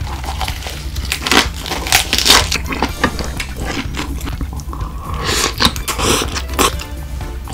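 Close-miked eating sounds: crunching bites and chewing, in irregular sharp crackles.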